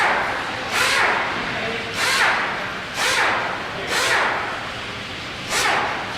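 Automobile repair shop ambience: a run of five short hissing bursts, roughly one a second, over a steady background din.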